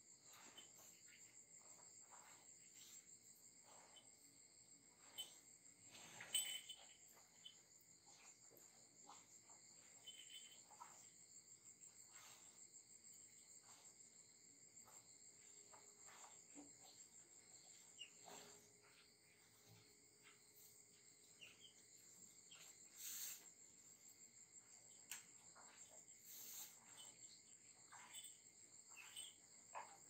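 Near silence: faint, steady high-pitched insect chirring, with scattered soft clicks and knocks.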